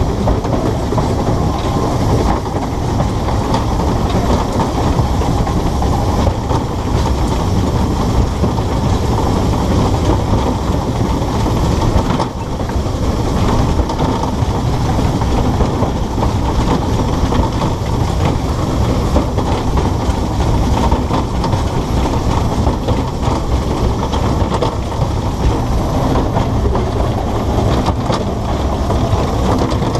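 Narrow-gauge steam locomotive running along the line, heard from its footplate: a loud, steady rumble of the engine, wheels and running gear on the track, dipping briefly about twelve seconds in.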